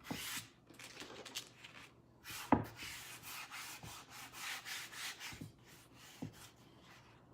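Hands sliding and rubbing a transfer sheet over a wooden board: a run of swishing strokes with a few light knocks, the sharpest about two and a half seconds in.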